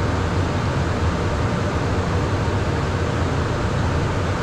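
Steady cockpit noise of a Beechcraft Premier 1A business jet in flight: a constant rush of air with a low hum underneath.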